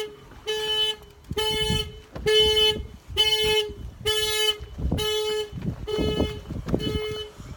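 Car alarm sounding the vehicle's horn in repeated short honks, each a steady single pitch, a little under one a second.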